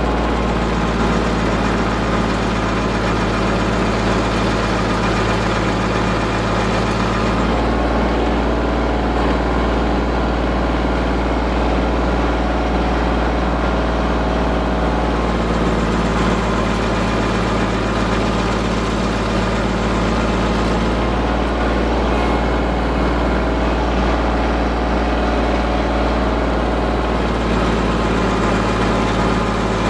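Tractor engine running steadily, driving a Woodland Mills WG24 PTO stump grinder whose 24-inch cutter flywheel is grinding into a cedar stump and throwing chips. The engine note shifts a few times as the cutter works.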